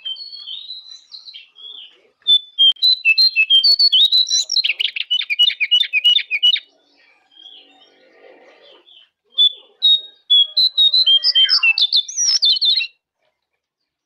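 Jongkangan songbird singing. Soft whistled notes come first. From about two seconds in, a loud rapid run of high chirping notes turns into a fast trill, followed by a pause of a few seconds. A second loud phrase of chirps and sweeping whistles then cuts off abruptly near the end.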